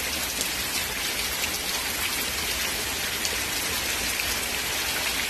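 Heavy rain falling steadily and hissing on the ground and road, with scattered drops ticking close by.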